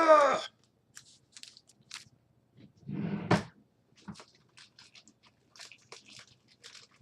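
An excited shout of "Ah!" at the start, then light rustling and clicking of trading cards and plastic card sleeves being handled, with a louder scuffling sound about three seconds in.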